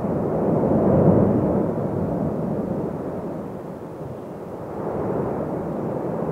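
Erupting volcano with lava fountaining, heard as a rushing low rumble. It swells about a second in, eases off, then builds again near the end.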